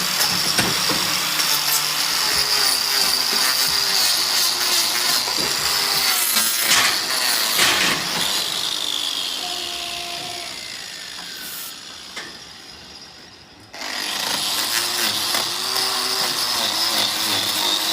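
A handheld power tool running with a steady high whine, switched off about seven seconds in and winding down with a falling pitch, then started again about fourteen seconds in.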